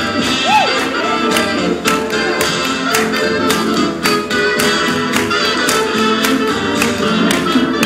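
Swing band playing, with several instruments over a steady beat of regular drum hits.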